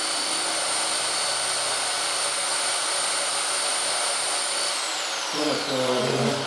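A high-speed electric motor runs steadily with a hiss and a high whine. It is switched off about three-quarters of the way through, and the whine falls as it winds down. A voice follows near the end.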